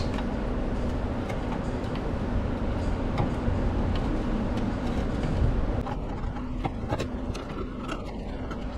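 Gasket scraper scraping old RTV sealant off the flange of an oil pan, with scattered clicks of the blade on the metal, over a steady low hum.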